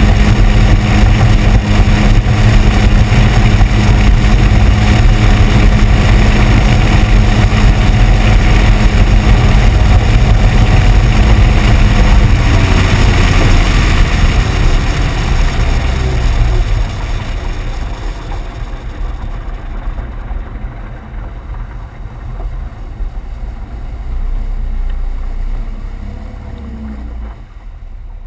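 Outboard motor pushing a small boat at high speed, a loud, steady hum. About twelve seconds in the steady pitch breaks up. From about seventeen seconds the sound drops sharply as the boat slows and comes off the plane, leaving a softer wash of water and wind.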